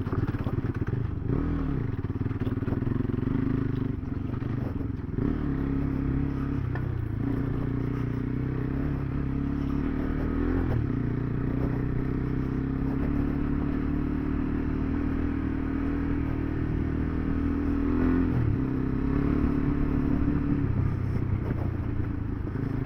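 KTM 390 Adventure's single-cylinder engine running under way off-road. The engine note dips and picks up again several times as the throttle is rolled off and back on.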